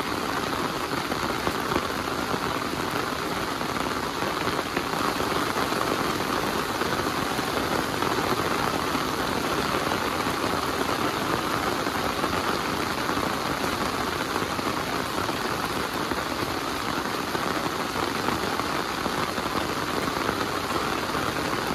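Heavy rain falling steadily, a dense, even patter of raindrops.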